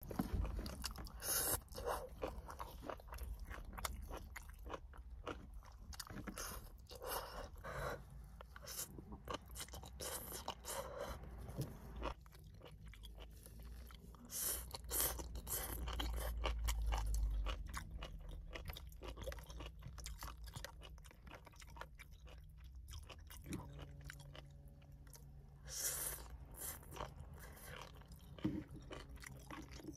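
Close-up chewing and crunching of seaweed salad eaten with chopsticks, crisp bites coming at irregular intervals. A low rumble swells for a second or two about halfway through.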